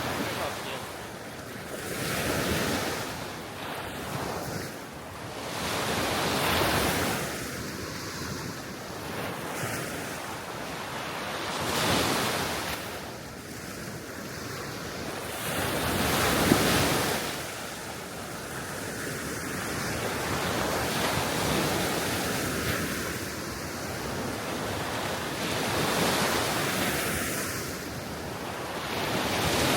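Small waves breaking and washing on the shore of a calm Baltic Sea, each swell rising and falling every four to five seconds, with wind rushing across the microphone.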